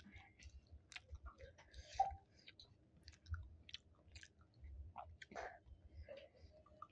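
A person chewing chicken and sticky rice close to the microphone: soft wet mouth clicks and smacks, one a little louder about five seconds in.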